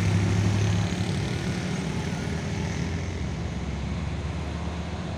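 Road traffic passing close: a minivan's engine hum is loudest in the first second as it drives by, then fades into a steady rumble of car engines and tyres as other cars come up the road.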